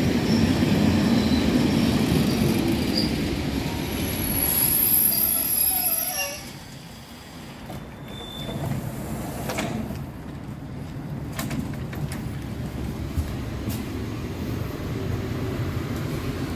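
Suburban electric train (elektrichka) pulling into the platform, rumbling along with a high brake squeal about four to six seconds in. The sound then drops off sharply as the train stops, followed by a few sharp clicks and a quieter steady hum.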